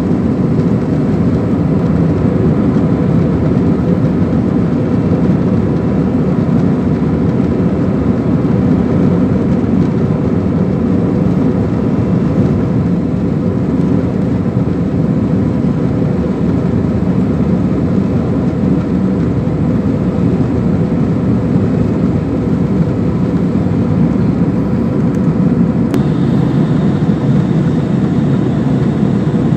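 Steady airliner cabin noise in flight: an even, low rush of engines and airflow with faint steady hums. There is one sharp click near the end.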